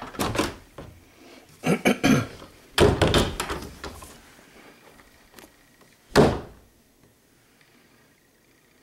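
Wooden cabinet doors and drawers being opened and shut, giving clusters of clattering knocks in the first few seconds. One louder knock comes about six seconds in.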